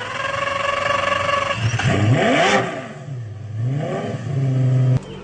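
Rapier Superlite sports car's engine revving loudly: a steady held note for about a second and a half, then quick throttle blips rising and falling in pitch, another rev about four seconds in, and a held note that cuts off abruptly near the end.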